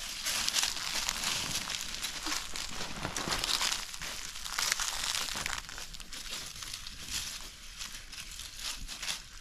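Dense rustling and crinkling, with many small crackles; it is loudest for the first five seconds or so, then eases off.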